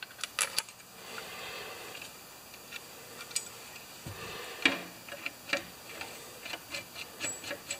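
Scattered light clicks and knocks of metal hardware being handled on a metal workbench: a lawn mower blade fitted with thatcher springs, and a bolt and washers. The sharpest knock comes a little past halfway.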